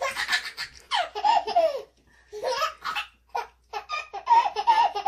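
Baby belly-laughing in repeated high-pitched bursts, about four fits of laughter with short breaks between them.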